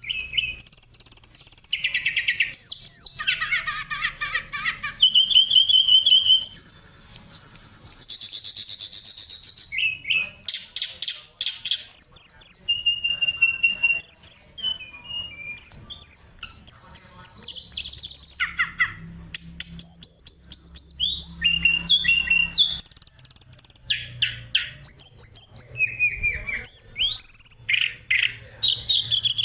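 Oriental magpie-robin (kacer) singing a long, varied song of loud whistled notes, quick trills and rapid chattering phrases, one after another with hardly a pause.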